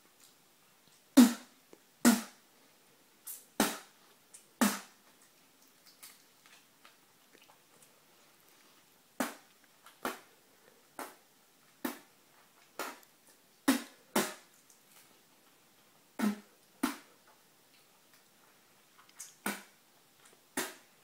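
A person spitting at a sheet of paper again and again: short, sharp spits at uneven intervals, often in quick pairs, with a pause of a few seconds near the middle.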